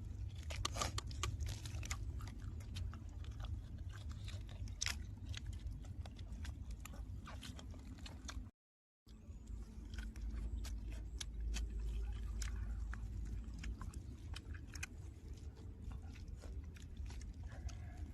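Close-up chewing and biting on boiled chicken: scattered small crunches and wet clicks over a low background rumble. The sound cuts out completely for about half a second just past halfway.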